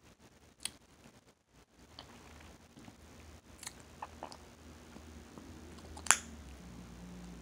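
Hubba Bubba bubble gum being chewed and smacked in the mouth: scattered sharp clicks and smacks, then one loud sharp crack of the gum about six seconds in.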